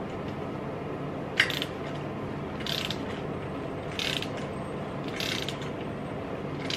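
A hand ratchet turns the centre bolt of a three-jaw puller to draw the crankshaft pulley off a Ford 5.0 Coyote V8. Short bursts of ratchet clicking come on each swing, about every second or so, with one sharp click about a second and a half in.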